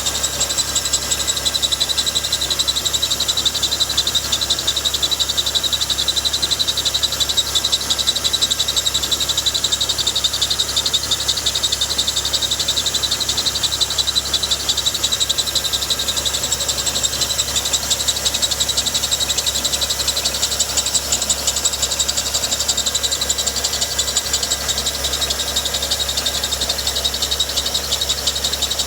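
BMW 135i's N55 turbocharged inline-six running at a steady speed, with a high-pitched, rapidly pulsing squeal from the engine bay over the low engine hum. The owner has not traced the source of the squeal.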